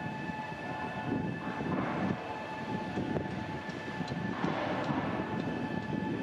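Distant shipyard machinery running: a steady hum with a constant high whine, and swells of hissing about a second and a half and four and a half seconds in.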